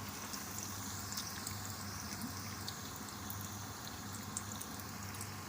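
Breadcrumb-coated potato and beef cutlets shallow frying in hot oil: a steady sizzle with scattered small crackles.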